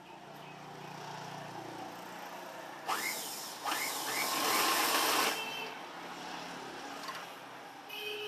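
Motor-driven sewing machine stitching mosquito netting, running in short bursts. Its motor whines up in pitch about three seconds in, and the run is loudest from about three to five seconds.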